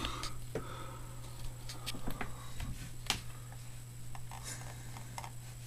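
Scattered clicks and taps of a computer mouse and keyboard, a few sharp ones about two and three seconds in, over a steady low electrical hum.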